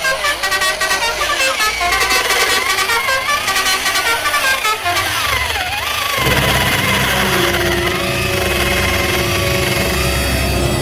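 Vehicle sound effects: wavering horn-like pitched tones, a falling glide about five seconds in, then a steady low engine-like drone from about six seconds on.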